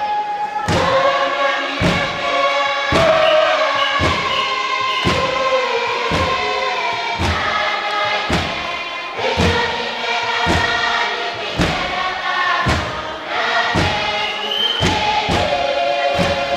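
Kiribati dance chorus: many voices sing together in harmony over a steady thudding beat.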